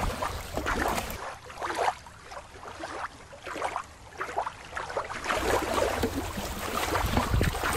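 Shallow water splashing and lapping against a rocky shore, with irregular small splashes. It is quieter for a few seconds in the middle.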